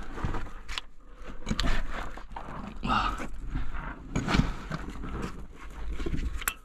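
A person breathing hard while crawling through a narrow tunnel, with hands, knees and clothing scraping and knocking on the loose dirt floor in uneven bursts.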